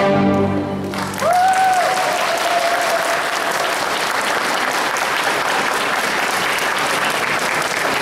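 A children's string orchestra's last chord dies away, then about a second in the audience breaks into steady applause, with one brief whoop rising over the clapping at its start.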